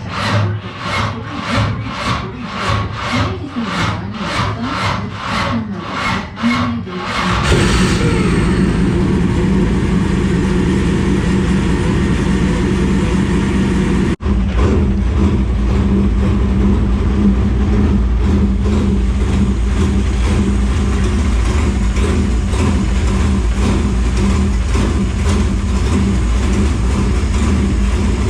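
GM 602 crate small-block V8 in a dirt late model, cranked over by the starter at about two pulses a second, catching about seven seconds in and settling into a steady run. This is a cold start after a long off-season lay-up.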